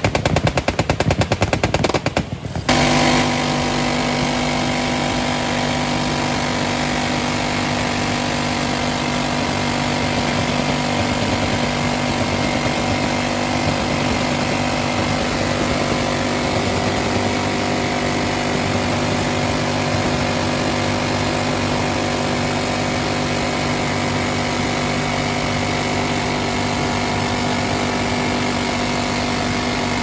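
Rotary-barrel minigun firing at a very high rate: a rapid burst for about two and a half seconds, a momentary break, then one long unbroken burst where the shots merge into a steady buzz.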